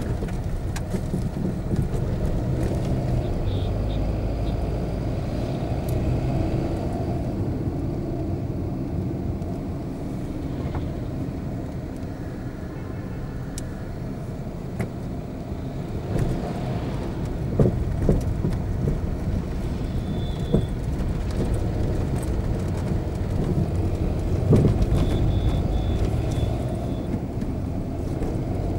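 A car driving on a highway, heard from inside the cabin: steady engine and tyre rumble, with a few sharp knocks and several brief high beeps.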